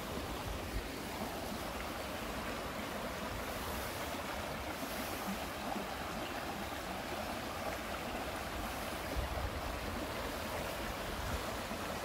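Shallow mountain stream running over rocks and pebbles: a steady, even rush of water.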